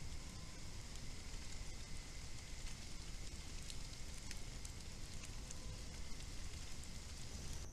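Night insects trilling steadily, two thin high tones held over a crackly background hiss, with a few faint scattered ticks.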